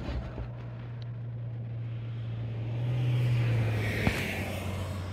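Low, steady hum of a motor vehicle's engine, growing louder about three seconds in, with a single sharp click about four seconds in.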